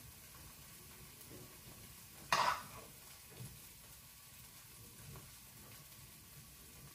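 A spoon scooping fried mushrooms out of a frying pan, with one short, loud scrape against the pan about two and a half seconds in and quieter scoops otherwise.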